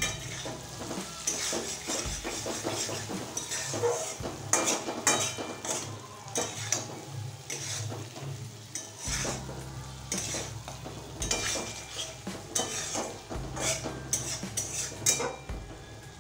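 Metal spatula scraping and stirring potatoes and spice paste around a metal wok, with repeated irregular scrapes over a steady sizzle of the masala frying in oil. This is the kosha stage, the spices being fried down with a little water.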